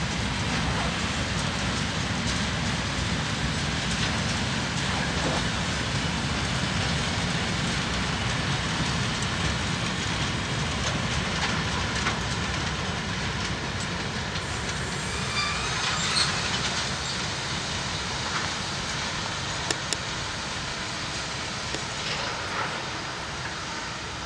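Freight train of tank wagons rolling past, wheels clicking over the rail joints, with a brief high squeal about two-thirds of the way through. The rumble eases off a little near the end as the last wagons move away.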